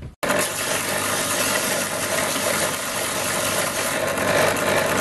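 Bench belt sander running at speed with a small steel block held against the moving belt, a loud steady rushing grind over the electric motor's hum. It starts abruptly just after the start.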